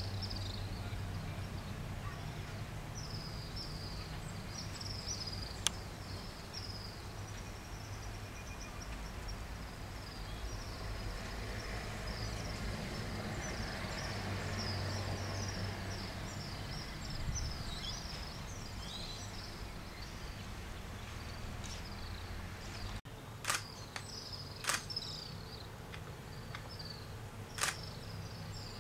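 Outdoor ambience: a steady low hum under many short, high, falling chirping calls repeated every second or so. A few sharp clicks come near the end.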